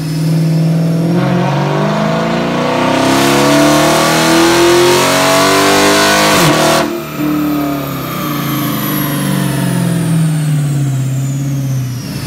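A 2013 Chrysler 300 SRT8's 6.4-litre 392 Hemi V8, breathing through an SLP Loudmouth cat-back exhaust, makes a wide-open-throttle pull on a chassis dyno: the engine pitch climbs steadily and loudly for about six seconds. Then the throttle is cut and the revs fall away.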